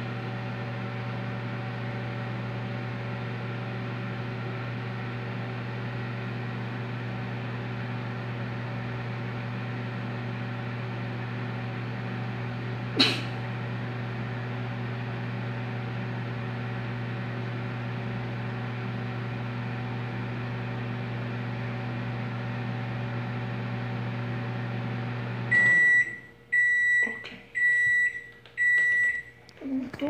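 Microwave oven running with a low steady hum, with a single sharp click about halfway through. The hum cuts off and four high beeps sound, signalling the end of the heating cycle.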